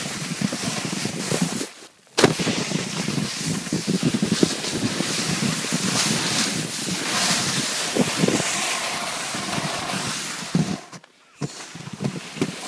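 Snowboard sliding over snow with wind rushing on the microphone, broken by many small knocks and thuds. There is a sharp knock about two seconds in, and the sound drops out briefly just before it and again near the end.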